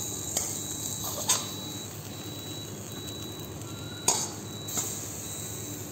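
Commercial kitchen background noise with a few short, sharp clinks of dishes and utensils, over a faint high tone that pulses on and off.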